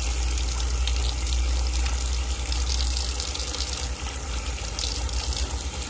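Tap water running in a steady stream and splashing over hands being rinsed beneath it, over a low hum that breaks up about halfway through.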